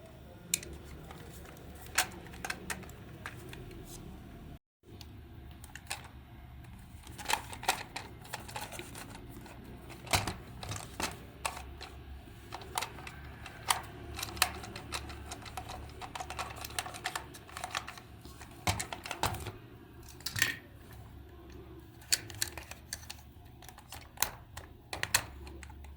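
Irregular sharp clicks and taps of small tools and parts being handled, over a steady low hum.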